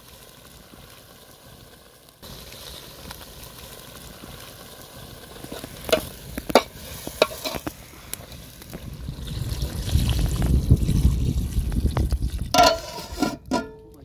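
A metal spoon stirring simmering chicken broth in a metal cooking pot over a wood fire, clinking sharply against the pot four times in quick succession midway. Later comes a stretch of low rumbling, then a ringing metal clank near the end.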